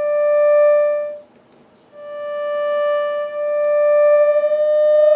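Synthesized tones from a browser-based tone generator, a mix of sine and sawtooth waveforms with a slow one-second attack. One mid-pitched tone swells and fades out about a second in. After a short gap a second tone of nearly the same pitch swells in and edges slowly upward.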